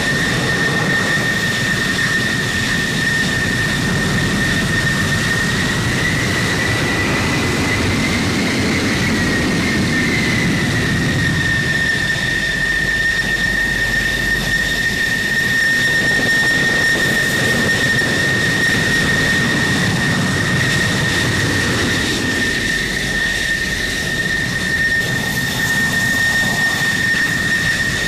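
F-16C fighter jet engine running at taxi power: a steady high-pitched whine over a low rumble, the pitch rising slightly about a third of the way in, then settling back.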